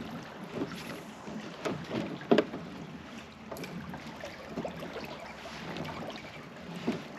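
Water splashing and knocking around a kayak: irregular splashes and thumps over a steady wash of water and wind, the loudest about two and a half seconds in.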